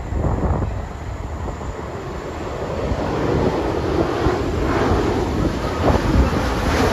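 Boeing 787-8 airliner's jet engines during landing: a steady rushing noise with a deep rumble that grows louder over the last few seconds, with wind buffeting the microphone.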